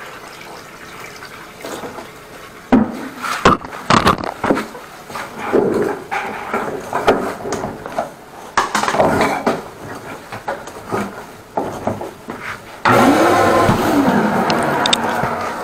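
Water running and splashing, with several sharp knocks and clatter about three to four seconds in; about thirteen seconds in a louder steady rush starts suddenly.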